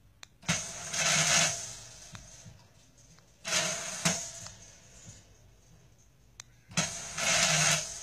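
Small electric motor whirring as the remote-controlled swanger spokes of a model rim drive out and back, three short runs a few seconds apart, some starting with a click. They move smoothly without jamming or seizing.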